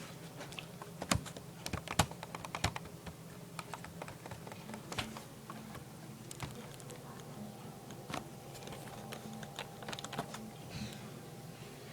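Irregular clicking taps on a computer keyboard, the loudest few in the first three seconds, over a low steady hum.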